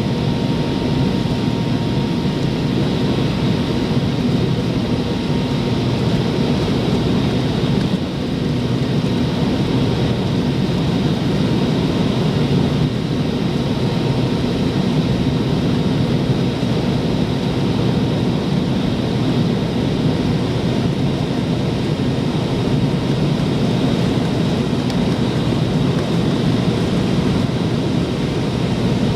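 Jet engine noise inside the cabin of a McDonnell Douglas MD-88, whose Pratt & Whitney JT8D engines are mounted at the rear of the fuselage: a steady low rumble with a thin high whine over it. The level holds even, with a brief dip about 8 seconds in.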